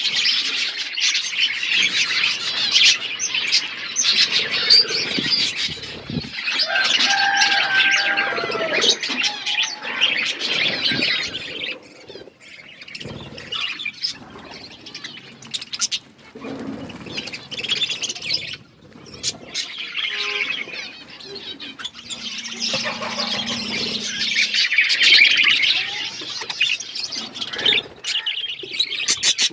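Budgerigars chattering and chirping, a busy warble of many short calls that thins out briefly a few times before picking up again.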